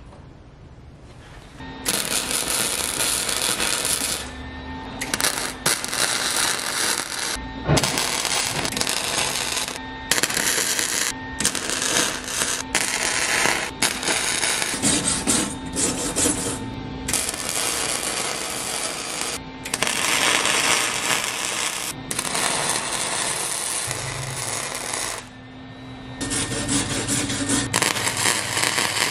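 MIG welding on 1/4-inch steel flat bar with a Lincoln Electric wire-feed welder: the arc crackles in runs of a few seconds, stopping and restarting about ten times as hinges and a clasp are welded to the frame. It starts about two seconds in.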